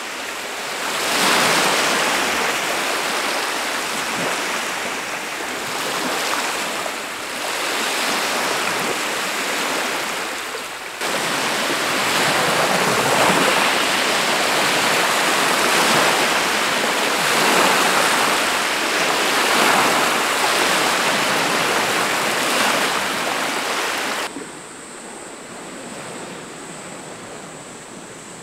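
Small lake waves lapping and breaking on the shore, swelling and fading every couple of seconds. About 24 seconds in it drops to a quieter, steady hiss of water.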